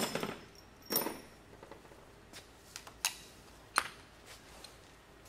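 Wrench and bolt clinking against the Ford 289 V8 block while the oil pump bolts are worked loose: a few scattered, sharp metallic clicks and knocks, the loudest about a second in and near four seconds in.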